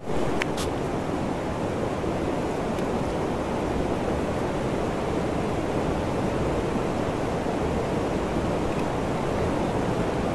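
Steady rush of flowing river water, an even hiss that holds at one level throughout, with a couple of light clicks just after the start.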